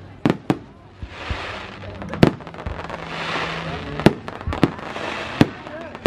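Aerial fireworks bursting overhead: a string of sharp bangs, about seven in six seconds at uneven intervals, with a crackling hiss between them.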